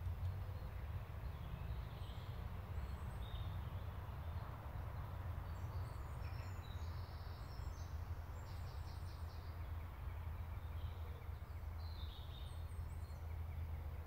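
Woodland ambience: a steady low rumble with faint small birds calling now and then, in short high chirps and a brief trill a little past the middle.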